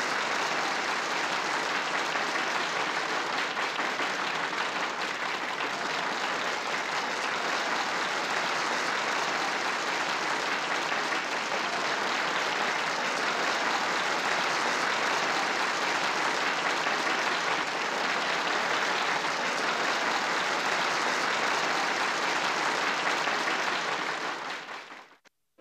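A large audience applauding steadily, fading out shortly before the end.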